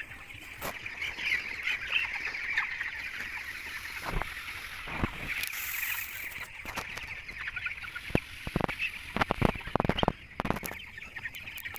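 A shed flock of chickens chirping continuously, with a few sharp knocks and a cluster of clattering knocks in the second half.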